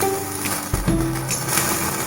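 Instrumental background music with sustained bass notes that change about once a second.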